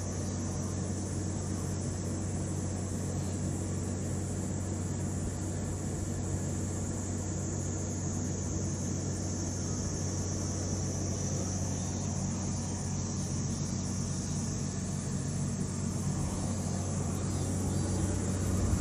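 Steady low hum with an even background hiss, unchanging throughout and slightly louder near the end.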